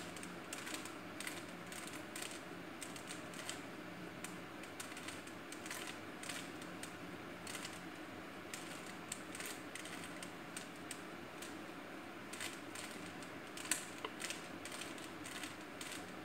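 Plastic 3x3 Rubik's cube being turned by hand: a run of quick, irregular clicks and clatters as its layers snap round, with one sharper click near the end.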